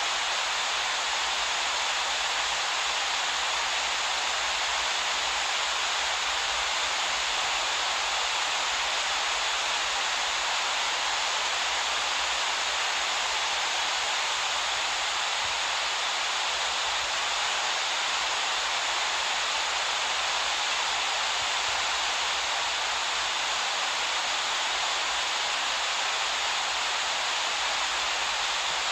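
Waterfall and white-water river rapids rushing in a steady, unbroken hiss.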